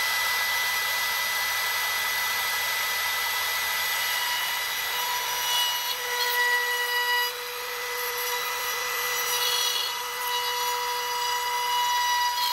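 Compact trim router running at full speed with a steady high whine, cutting through the guitar's arched top as it is guided around a template to clean up the pickup-hole edges. The cutting noise rises and falls as the bit moves through the wood.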